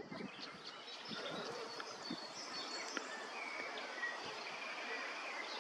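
Outdoor ambience: a steady faint hiss with scattered short, high bird chirps.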